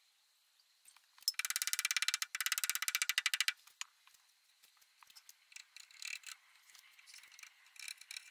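A strip being pulled off a hand-held roll of sandpaper in two quick pulls, giving a rapid rasping rattle for about two seconds, followed by light scattered clicks and rubbing.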